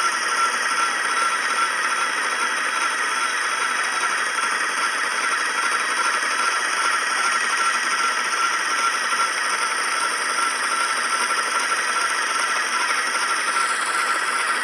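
Homemade wooden electric spinning wheel running steadily while spinning sheep's wool into yarn: the motor, flyer and bobbin make a constant whir with a steady high whine.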